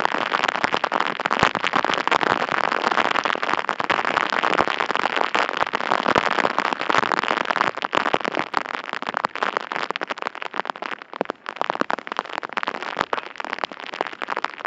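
Rain falling, with a dense crackling patter of drops striking close to the microphone.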